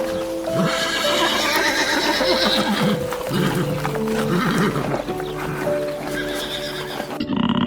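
Repeated harsh whinnying calls from an equine animal over background music with long held notes.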